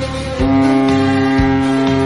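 Background music with a steady beat. About half a second in, a loud, steady, low horn tone from the minesweeper tender Uraga's ship horn comes in and holds over it.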